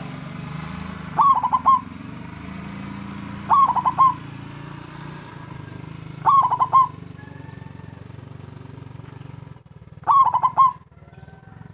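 Zebra dove (perkutut) singing: four short bursts of quick staccato coo notes, a few seconds apart, over a steady low hum. This is the dove's frequent calling that keepers use to lure other perkutut.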